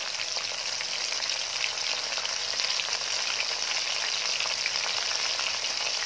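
Semolina-coated prawns deep-frying in hot oil in a wok: a steady sizzle with many small crackles.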